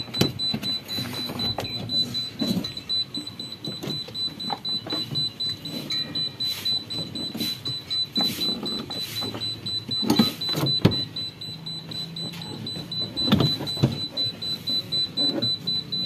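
Irregular clicks and knocks of hands fitting plastic parts inside a twin-tub washing machine, over a steady high-pitched whine.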